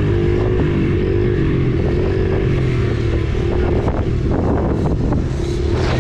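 Honda 70 trail bike's small four-stroke single-cylinder engine running, its pitch rising and falling with the throttle, with a few short knocks about halfway through.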